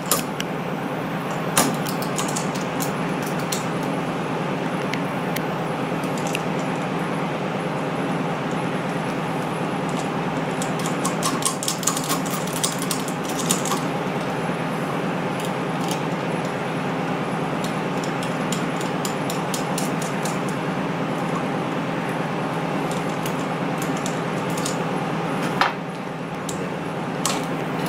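Small metal clicks and taps of a screwdriver, nuts and the aluminium support bar as the bar is fitted and screwed down onto a Braillo embosser's magnet rack, most of them together about halfway through. Under them runs a steady hum and hiss.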